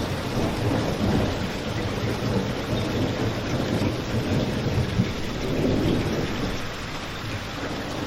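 Steady rain, layered over a low rumble, with a fireplace crackling and a sharp pop about five seconds in.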